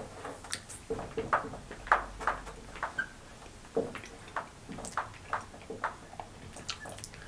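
Dry saltine crackers being chewed with the mouth, a run of short irregular crunches about three a second.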